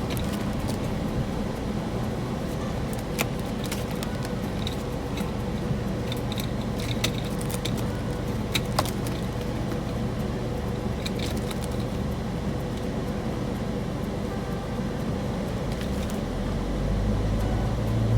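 Steady low rumble of a moving car heard from inside, with a few small clicks and rattles; the rumble grows louder near the end.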